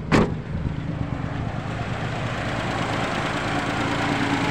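Carburetted car engine idling steadily just after being restarted, once it had been left to cool from an overheating radiator. A sharp thump sounds just after the start.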